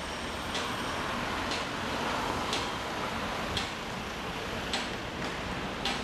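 Construction-site din of steady traffic-like rumble and hiss, with sharp, slightly ringing knocks of hammering about once a second.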